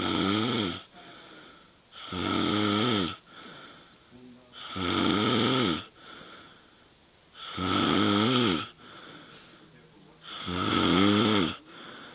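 A sleeping man snoring in a steady rhythm: five snores, each about a second long and about two and a half seconds apart, with a quieter breath between each.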